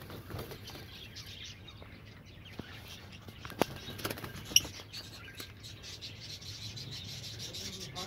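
A colony of masked and peach-faced lovebirds chirping and chattering in short high calls, with a few sharp clicks about three and a half to four and a half seconds in.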